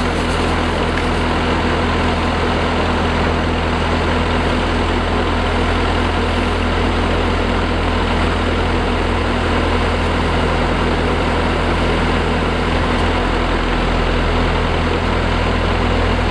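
Rice combine harvester's diesel engine running steadily, with the machine's threshing and mechanical noise.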